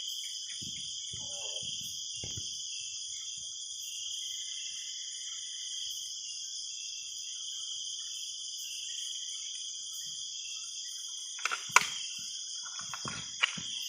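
Steady, shrill chorus of night insects, with a few sharp knocks or clicks close by about eleven to thirteen seconds in.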